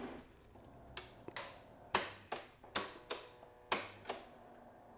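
Piano-key cassette transport buttons on a Hitachi TRK-8800 boombox being pressed and released: about eight sharp mechanical clicks, mostly in pairs.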